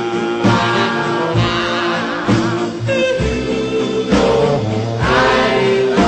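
A reggae song playing, a singer's voice with vibrato over a deep bass line.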